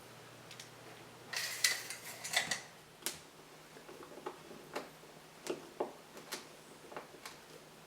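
Irregular light clicks and taps in a small room, with a short cluster of louder clattering clicks about a second and a half in.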